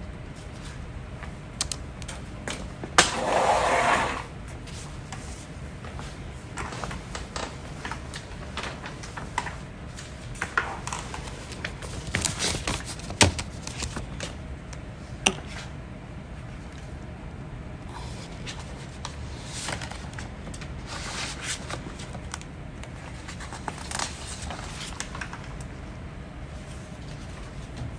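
A person hiccuping slowly: sharp, clicking hiccups spaced several seconds apart, with one louder, longer sound about three seconds in.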